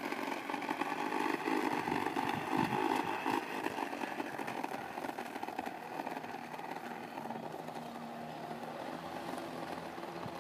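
Toy bubble lawn mower's small motor whirring steadily as it is pushed across grass, a little quieter after about four seconds.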